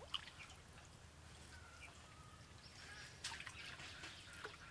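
Faint water dripping and splashing off a wet cast net as it is lifted and gathered out of a pond, with a few sharper splashes, the clearest about three seconds in.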